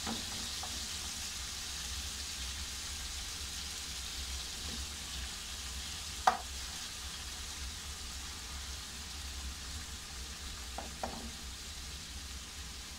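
Thin strips of beef sizzling in hot oil in a nonstick frying pan over medium heat while being stirred, a steady hiss that eases slightly toward the end. A single sharp knock about six seconds in, and a lighter one near the end.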